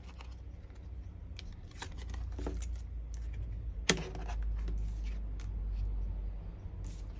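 Tarot cards being shuffled and handled: a run of light, irregular papery clicks and flicks, with one sharper snap about four seconds in.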